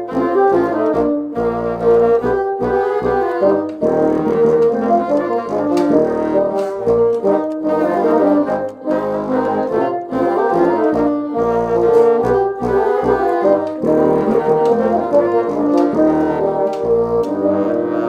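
A large ensemble of bassoons playing a Christmas carol together in harmony, with moving rhythmic parts.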